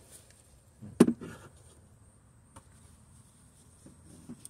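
A single sharp knock about a second in, with a smaller one right after it, from hands handling the plastic cabin-filter housing and trim under the dash; otherwise only faint room tone.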